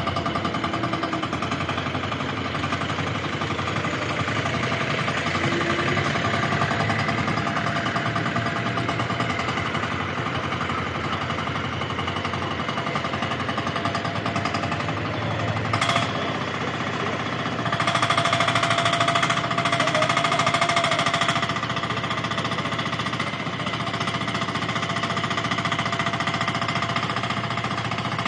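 Compact mini excavator's small engine running steadily with a fast, rattling beat while the boom and bucket are worked. It grows louder briefly about 16 seconds in, and again for about three seconds from around 18 seconds in, with a steady whine added.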